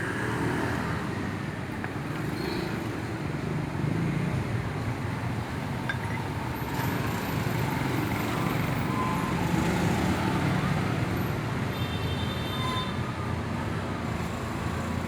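Mitsubishi 8DC9 V8 diesel engine, marinized for boat use, running steadily at a constant speed.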